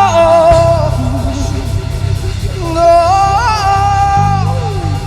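Live gospel worship music: a lead singer holding long, drawn-out notes that bend and glide, over band accompaniment with a steady low bass.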